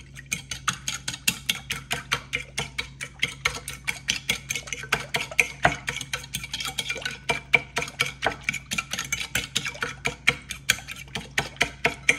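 A metal fork whisking egg, half-and-half and cinnamon sugar in a ceramic bowl, its tines tapping the bowl in a rapid, steady clicking.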